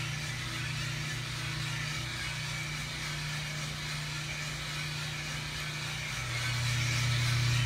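US Roaster Corp 3-kilo drum coffee roaster running about three minutes into a roast: a steady mechanical hum that grows louder about six seconds in.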